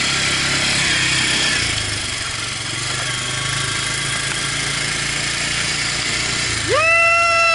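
Quad bike (ATV) engine running steadily while riding over sand, with wind rushing across the microphone. A high-pitched held tone cuts in near the end.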